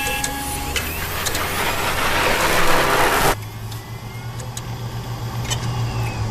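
Electronic outro sound design: a low humming drone under a swelling hiss that cuts off suddenly a little over three seconds in, followed by a low pulsing drone with faint gliding tones.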